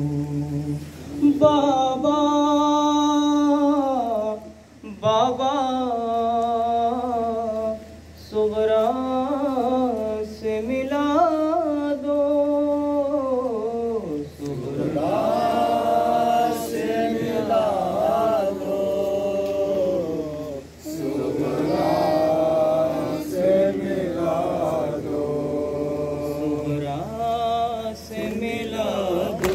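A man chanting a noha, a Shia Muharram lament, into a microphone in long, drawn-out sung phrases. From about halfway through, a group of mourners joins in and chants along.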